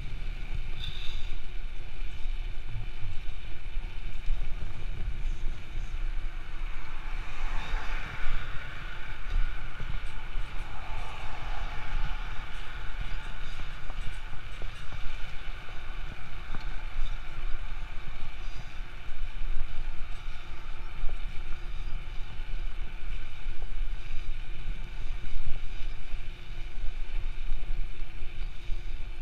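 Wind buffeting the microphone of a camera riding on a moving bicycle, a constant low rumble with road noise, under a faint steady high whine. A louder rushing sound swells and fades between about seven and twelve seconds in.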